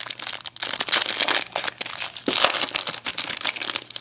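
Trading card pack wrapper crinkling in the hands as it is opened, with continual irregular rustles.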